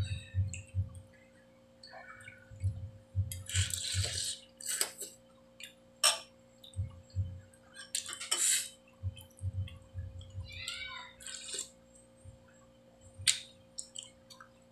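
Someone eating noodle soup up close: spoonfuls of broth and noodles slurped in short hissing pulls, soft chewing in quick runs, and a metal spoon clicking against the bowl.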